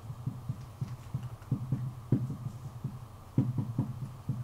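Marker pen writing on a whiteboard: a string of soft, irregular low taps and knocks as each stroke is drawn, over a steady low hum.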